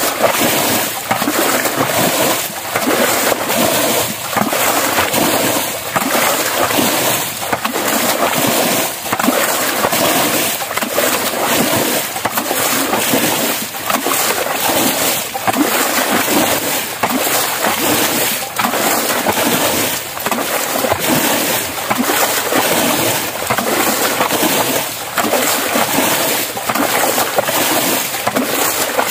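A plastic bucket repeatedly scooping muddy water from a shallow creek channel and throwing it out, splashing and sloshing about once a second: bailing by hand to lower the water level.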